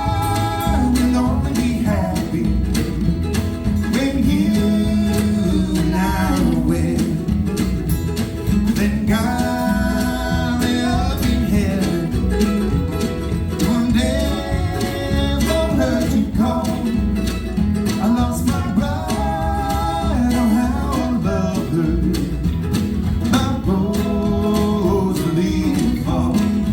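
Live acoustic band playing a country-bluegrass song: sung vocal phrases of a few seconds each over steadily strummed acoustic guitar.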